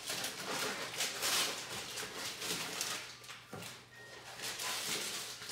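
Paper rustling in uneven bursts as a gift bag and its wrapping are handled and pulled open.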